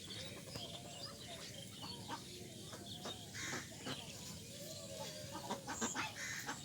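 Farmyard ducks calling: soft, wavering low calls mixed with short higher notes and scattered clicks.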